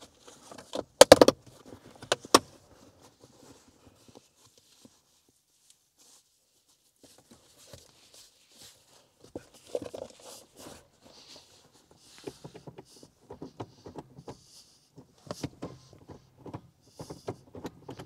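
Plastic shift-boot trim surround being pressed back into a car's center console: a few sharp snapping clicks about a second in and again around two seconds, then softer scattered clicks and rustling of the leather boot as it is handled.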